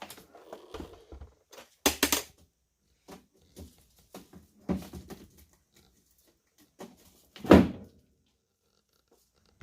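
Rustling and knocking of packaging and accessories being handled, in irregular bursts, with louder ones about two seconds in and near the end.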